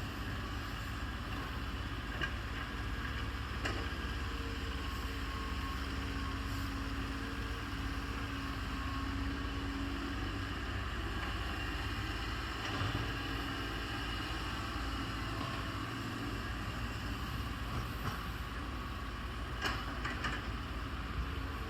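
Hydraulic excavator's diesel engine running steadily while it digs, with a few light knocks scattered through.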